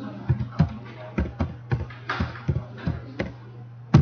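Keystrokes on a computer keyboard: about a dozen separate key presses, digits and the Enter key, typed at an uneven pace over a steady low hum.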